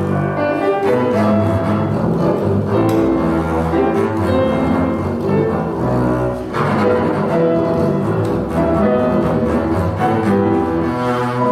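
Double bass played with the bow in a classical duet with grand piano, the bass carrying a sustained, singing melodic line over the piano accompaniment.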